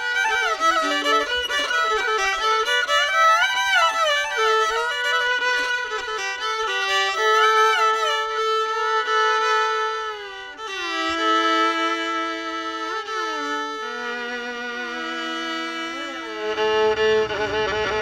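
Violin playing a melody with many sliding notes. Quick runs in the first half give way to slower, held notes, and a lower accompaniment joins near the end.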